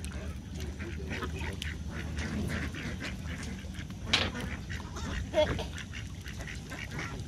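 Ducks quacking in short, scattered calls as they gather for food, with a louder call about four seconds in, over a low steady rumble.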